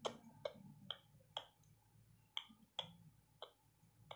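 Faint, light clicks about twice a second, each with a short ring, as a hand squeezes and crushes chopped onions and tomatoes with salt in a pan.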